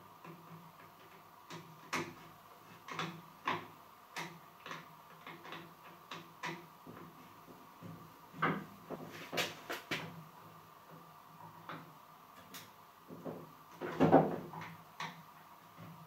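Irregular clicks, knocks and light clatter of a hand tool and plastic and metal parts being handled while the loose handle on a pole chainsaw's shaft is tightened. There is a louder cluster of knocks near the end.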